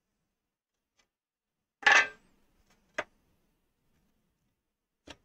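A sheet of 1/8-inch aluminum plate set down on a workbench: a brief metallic clatter about two seconds in, then a sharp knock about a second later and a fainter tap near the end.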